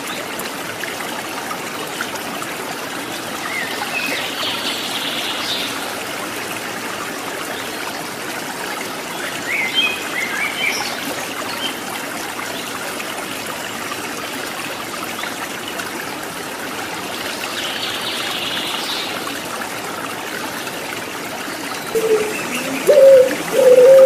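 Steady trickle of running stream water, with a few short high bird chirps now and then. About 22 seconds in, a puter pelung (ringneck dove) starts a loud, low coo that bends up and down in pitch.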